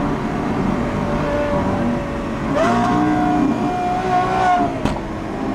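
Lamborghini Aventador SVJ's V12 running through a Gintani F1 exhaust while driving. About two and a half seconds in, the engine note steps up and holds, then drops back shortly before the end.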